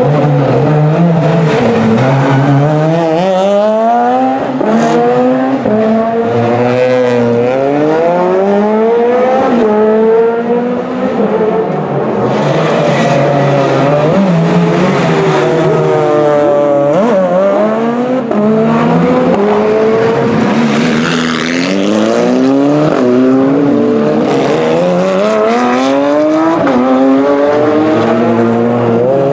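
Rally car engines revving hard, with repeated rising pitch sweeps that drop back at each gear change as the cars accelerate, brake and shift down through the corners. Several cars pass in turn.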